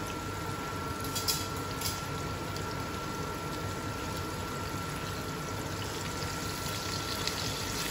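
Breaded fish fillets sizzling steadily in hot oil in a frying pan, with a few faint crackles about a second or two in.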